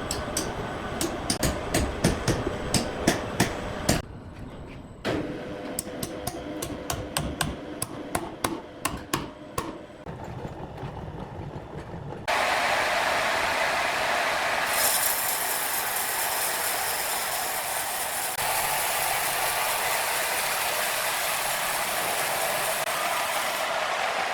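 Woodworking machinery: rapid, irregular knocking and clattering, then an abrupt change about twelve seconds in to a loud, steady machine noise that runs on with sudden shifts in level.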